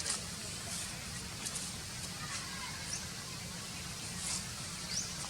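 Outdoor ambience: a steady low rumble with a few sharp clicks and several brief, high, rising chirps scattered through it.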